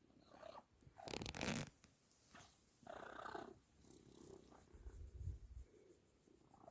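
A sleeping cat snoring, one rough breath about every two seconds, the first the loudest.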